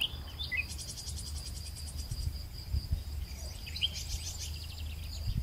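Outdoor insect and bird ambience: a steady high insect trill with bursts of rapid high chirping pulses, a few short bird chirps, and a low rumble underneath.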